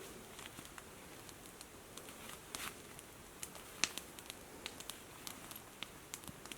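Faint, irregular crackling: scattered small clicks and pops at uneven intervals over a low steady hiss.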